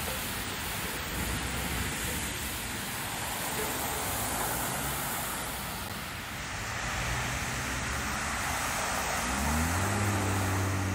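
Storm water gushing up from a sewer manhole whose cover has blown off, a steady rushing hiss: the sign of a storm sewer overloaded by flash flooding. Near the end a vehicle engine rises in pitch, then holds a steady hum.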